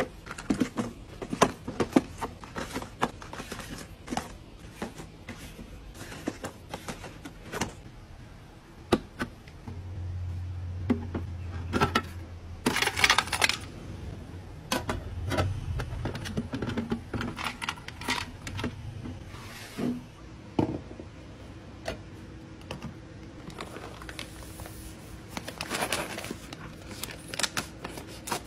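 Handling sounds of cardboard coffee-capsule sleeves and aluminium Nespresso capsules being set and dropped into clear plastic organizer drawers and bins: many light clicks, taps and small clatters at an irregular pace.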